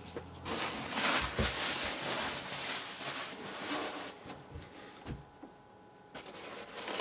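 Tissue paper packing rustling and crinkling as it is pulled out of a cardboard box. It is loudest in the first few seconds, quieter after that, and picks up again near the end, with a few soft knocks of handling.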